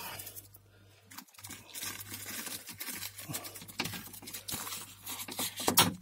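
Adhesive tape being peeled off a car door's plastic protective sheet, with the plastic crinkling: a run of short, irregular ripping and rustling sounds, the loudest rip just before the end.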